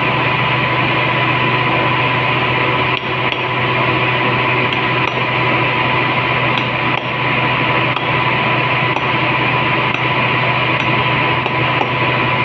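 Small hammer tapping a hollow punch to cut a gasket from high-temperature Klinger jointing sheet for a gate valve: about a dozen light, irregular taps. The taps are faint under a steady, loud hum and hiss.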